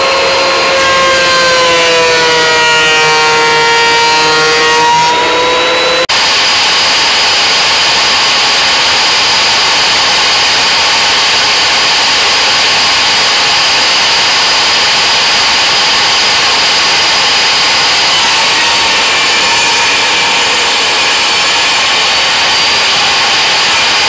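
A benchtop thickness planer running, its motor pitch dipping and recovering as it takes a cut. About six seconds in it gives way abruptly to a table saw running steadily with a high whine as zebrawood strips are cut on a crosscut sled.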